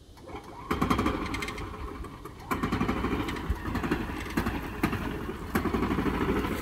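Golf cart engine starting off and running hard under load as it hauls on the rope, kicking in about a second in and getting louder again a couple of seconds later, with rattles and clanks from the metal ladder stand being pulled upright.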